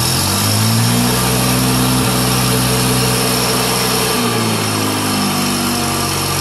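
Satoh S650G tractor's gasoline engine running. Its speed rises in the first second, holds steady, drops a little past four seconds in, then picks up again.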